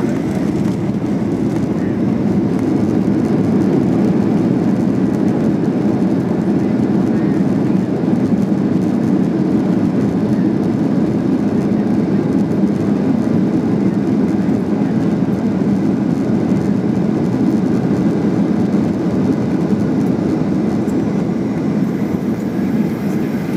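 Steady loud roar inside the cabin of a Boeing 737-800 rolling out along the runway after touchdown: its CFM56 engines and the rumble of the wheels on the runway.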